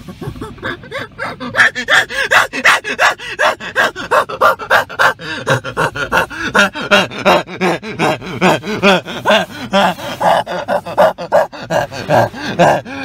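A person laughing hard and without a break, in rapid gasping bursts several times a second.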